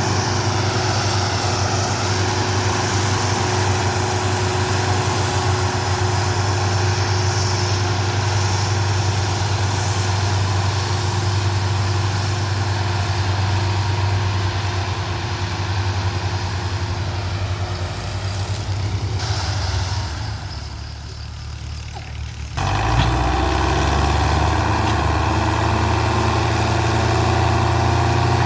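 Tractor diesel engine running steadily with a low hum. It fades for a couple of seconds near the end, then comes back abruptly.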